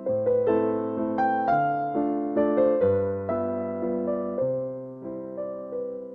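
Gentle background piano music, notes struck one after another in a slow, flowing melody over held bass notes.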